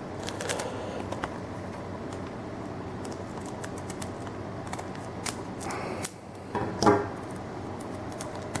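Foil booster pack being torn open and trading cards handled: crinkling and rustling with scattered small clicks.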